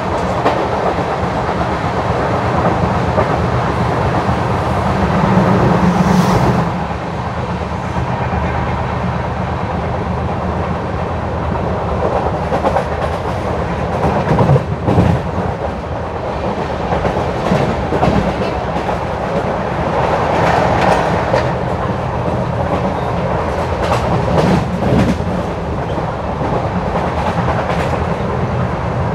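Running noise of an Indian Railways LHB passenger coach heard from inside at a window seat: a steady rumble of wheels on the rails with scattered clicks. It swells for a moment about six seconds in, then drops back, and rises and eases a few more times.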